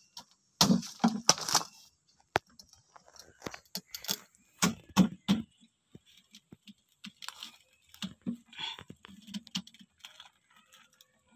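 Thick durian husk being stabbed and cut open with a large knife: a series of crunching cracks and knocks from the blade working through the husk. The strongest come in a cluster about a second in and another around five seconds in.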